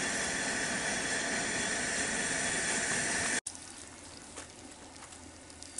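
Steady hiss of a Coleman camp stove burner heating a pot of water, cutting off suddenly about three and a half seconds in; after that only faint background.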